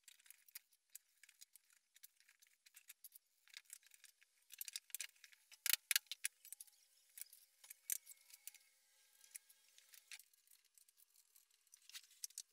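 Small metal clinks and light wooden taps from bolts, nuts and plywood pivot arms being handled and fitted onto the folding toolbox's hinge bolts, with a burst of sharper clinks about six seconds in.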